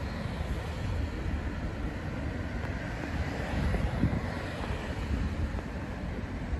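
Wind buffeting the microphone: a gusty low rumble over a steady outdoor hiss.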